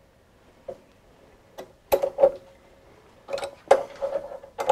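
Metal clicks and clinks as a tap in a drill press chuck is started by hand, with a chuck key at hand: about eight short sharp knocks, a few with a brief ring, most of them in the last second and a half.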